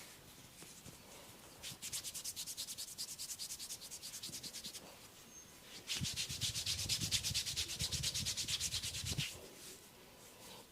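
Hands rubbing and scratching fast on hair and scalp in a head massage, in two bouts of about three seconds each, the second louder.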